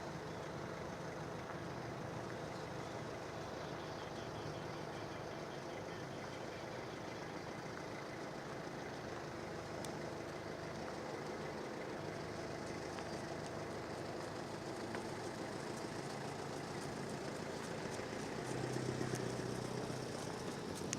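A vehicle engine idling steadily, with the low hum swelling a little near the end.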